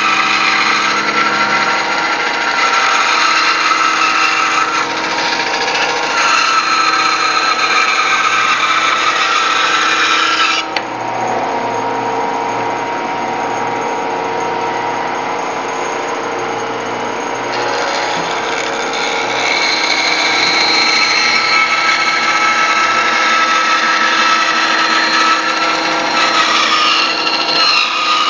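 Woodworking band saw cutting through a thick wooden block, with a high whine from the blade in the wood. About ten seconds in, the cutting noise stops abruptly and the saw runs on without load for several seconds. Then the blade cuts into the wood again.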